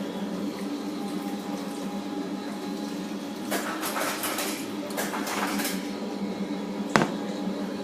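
Fisher & Paykel GW712AU top-loading washing machine early in its final spin, still below 200 RPM, its motor giving a steady hum. Several short swishing noises come about halfway through, and a single sharp click comes near the end.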